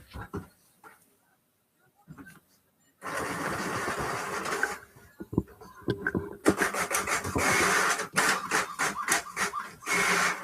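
Desktop printer printing the list: a steady run of feed noise, a pause, then a longer, uneven chattering stretch with rapid clicks.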